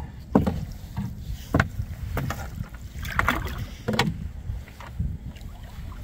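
Irregular knocks and clunks of gear against a small fishing boat, about half a dozen with a brief rattle about three seconds in, over a low wind rumble on the microphone.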